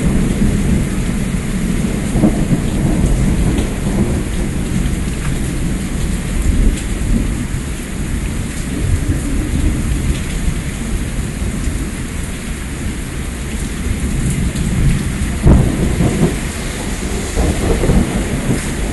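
Thunderstorm: heavy rain falling steadily, with thunder rumbling throughout and peaking loudest about fifteen seconds in.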